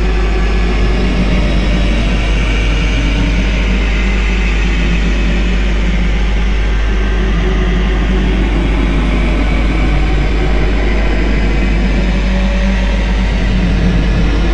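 Loud, dense soundtrack of distorted metal music: a steady wall of sound with a heavy low end and no breaks.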